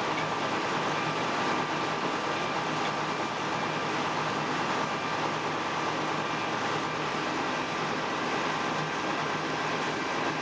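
Diesel engine of the DC121 light-railway locomotive running steadily under way, heard from inside its cab, with a steady whine near the top over the running noise of the train.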